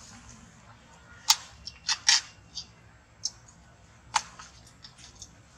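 A baby macaque chewing a plastic drinking straw: about six sharp, irregular clicks and crackles of teeth on plastic, the loudest about a second in and two close together around two seconds.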